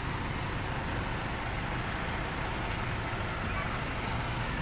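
Steady outdoor market background noise: a low rumble and hiss with no distinct events, with faint voices.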